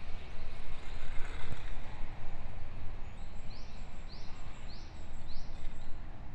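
Outdoor wind rumble buffeting the microphone, with a bird giving four short rising chirps about halfway through.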